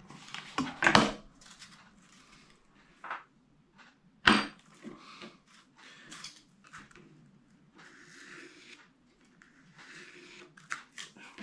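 Hot melt glue gun and foam board pieces handled on a worktable: a clatter about a second in, a single sharp knock about four seconds in, then softer scraping and rubbing of foam.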